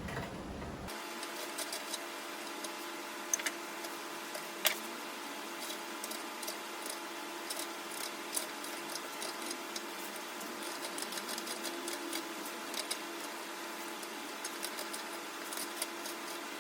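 A knife paring a wooden spoon blank by hand: faint, irregular small clicks and scraping ticks as the blade cuts, with a few sharper snaps, over a steady low hum.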